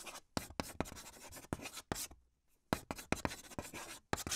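Chalk writing on a blackboard: a quick run of sharp scratchy strokes, with a short pause about two seconds in.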